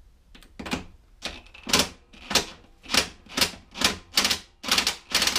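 DeWalt cordless driver with a 13 mm socket run in short, repeated bursts on a lawnmower deck bolt, about two bursts a second and coming faster near the end. The bolt is slipping rather than coming undone, because a nut holds it from behind.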